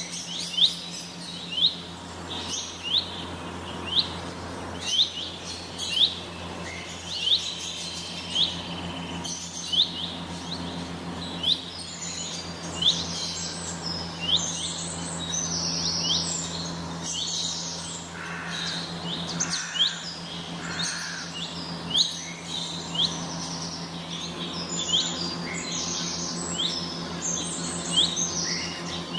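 Captive birds in an aviary calling: one bird repeats a short rising chirp about once a second, and other birds' chirps and calls join in through the middle. A steady low hum runs underneath.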